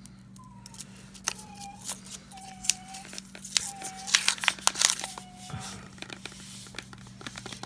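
Paper wrapper of a coin roll of half dollars being torn open and crinkled, with coins clicking against each other.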